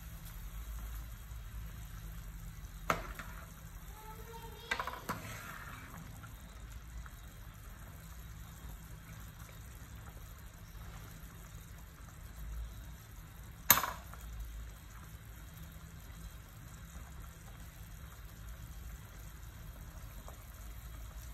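A metal pot of soup bubbling at the boil on the stove, with a metal ladle stirring it and clinking against the pot a few times: once about 3 s in, a few light clinks around 5 s, and one sharp knock, the loudest, about 14 s in.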